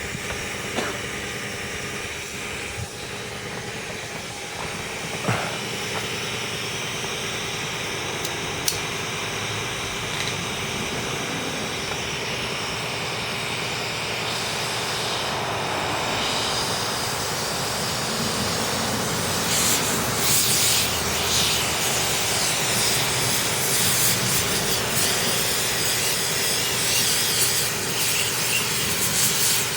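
Steady jet-like rushing hiss of flame and air being driven into a clogged two-stroke aluminium silencer, burning out the oil and carbon inside. A few sharp clicks come early, and the rush grows louder and rougher about two-thirds of the way through.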